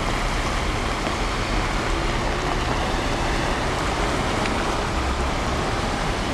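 Cars driving slowly through deep floodwater on a flooded road, pushing waves ahead of them: a steady rush of churning, splashing water with traffic noise and a low rumble beneath it.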